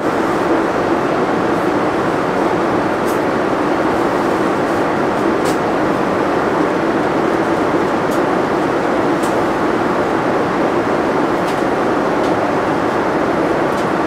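Jet airliner cabin noise at cruise: a steady, even rush with a low hum. A few faint ticks sound over it.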